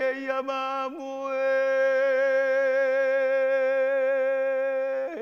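A solo voice singing or chanting in quavering short notes, then holding one long steady note from about a second in until it breaks off at the end.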